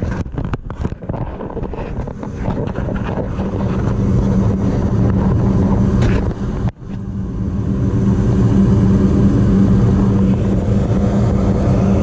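Goodman gas furnace running: a steady motor hum with a strong low drone, briefly dipping about a second in and again past the middle.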